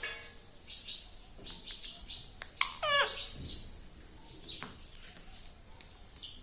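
Pet parrot making short chirps, with one louder call about three seconds in that slides down in pitch.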